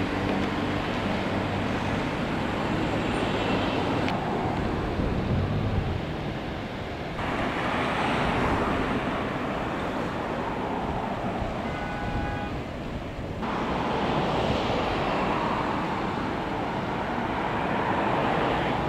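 Steady street traffic noise, a rushing hiss that changes abruptly three times.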